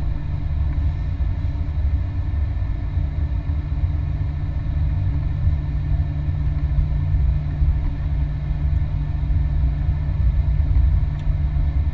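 Cabin noise of a Boeing 737-800 taxiing: a steady low rumble from its CFM56 engines at idle and the aircraft rolling on the taxiway, with a steady hum underneath.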